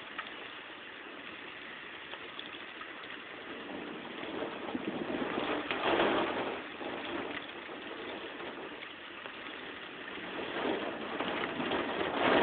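Heavy thunderstorm rain and wind, a steady wash of noise that swells about six seconds in and again near the end.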